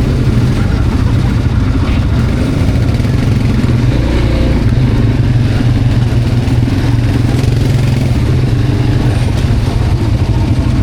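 Quad bike engine running steadily while riding, a loud low-pitched sound with even loudness throughout.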